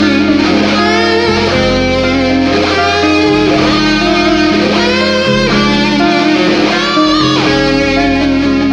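Heavy metal music: electric guitar leads with bending notes over sustained chords and bass, with no singing.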